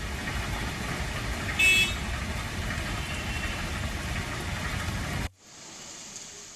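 Steady rumble of city traffic and a metro train on an elevated track, with a short horn toot about one and a half seconds in. The sound cuts off abruptly past five seconds into a quieter, even hiss of falling rain.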